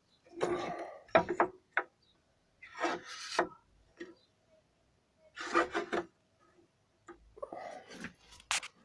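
Wood being handled: four short spells of scraping and rubbing with small knocks between them.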